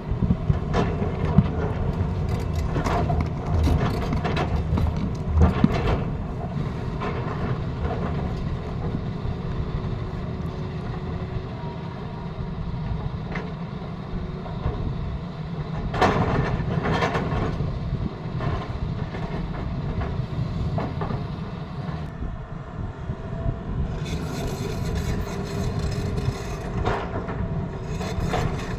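Tata Hitachi excavator's diesel engine running steadily, with repeated metallic clanks and knocks from the machine working, clustered in the first few seconds and again about midway.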